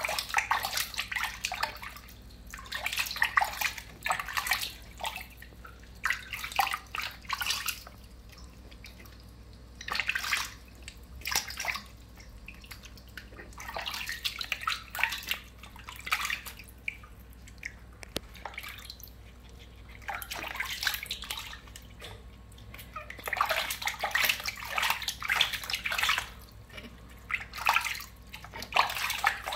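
Water splashing and sloshing in a bathtub as a hand scoops it over a newborn monkey, in irregular bursts a second or two long with short quieter pauses between.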